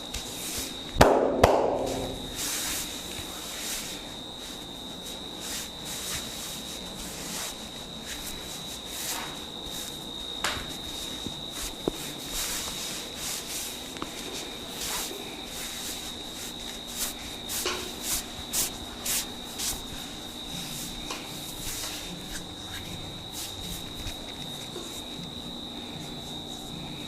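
Close-up barber's massage sounds: hands rubbing and working through hair and over skin in a stream of crackly rustles and small snaps, with two loud sharp cracks about a second in and a quick run of louder slaps or taps later on. A steady faint high tone runs underneath.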